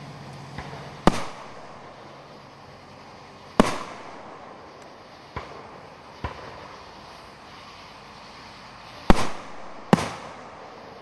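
Aerial firework shells going off at a fireworks display: six sharp booms spaced irregularly, the two loudest close together near the end, each trailing off in a short rumbling echo.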